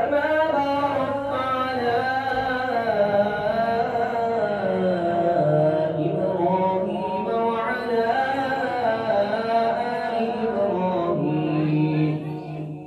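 One male voice chanting Quran recitation (tilawat) in a long melodic phrase, holding notes and sliding between them, and trailing off near the end.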